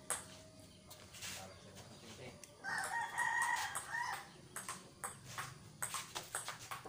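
Table tennis rally: the celluloid ball ticking off paddles and the table, with a quick run of ticks in the last two seconds. Near the middle a rooster crows once, a single call of over a second and the loudest sound.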